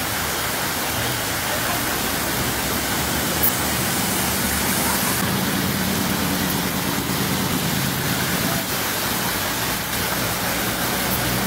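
Heavy rain pouring steadily onto a flooded street, a dense even hiss, with a vehicle engine humming faintly at times as cars drive through the floodwater.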